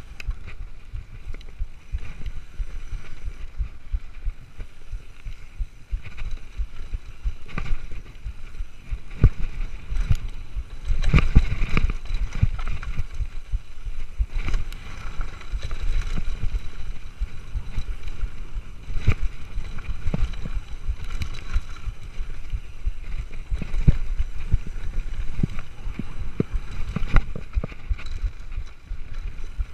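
Mountain bike running fast down a rough dirt and rock trail: tyres rumbling over the ground, with frequent knocks and rattles from the bike as it hits bumps. The heaviest run of jolts comes about eleven seconds in. A steady low rumble of wind on the camera's microphone runs underneath.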